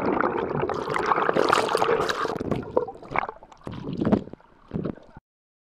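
Water splashing and churning close to an action camera's microphone. The sound is dense at first, thins into a few separate splashes, and cuts off suddenly near the end.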